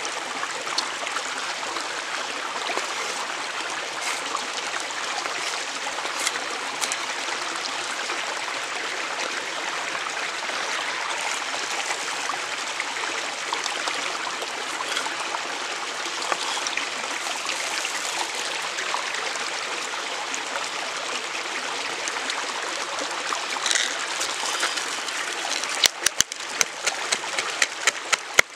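Steady rush of a flowing stream, with a quick run of sharp knife taps on a wooden cutting board near the end as peppercorns are chopped.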